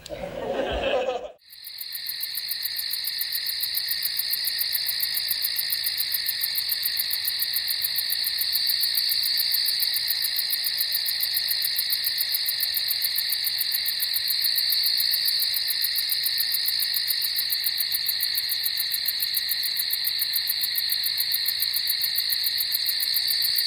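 Crickets chirring in a continuous, steady, rapidly pulsing chorus. It starts abruptly about a second in, after a brief voice.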